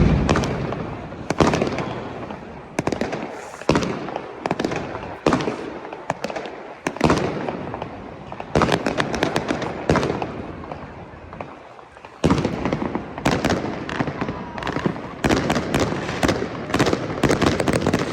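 New Year fireworks display: loud shell bursts every second or two, each fading away afterwards, turning about two-thirds of the way through into a rapid, dense string of bangs and crackles.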